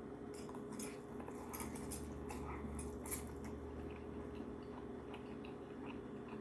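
Eating utensil clinking against a bowl of ramen noodles several times, then fainter chewing, over a steady low hum.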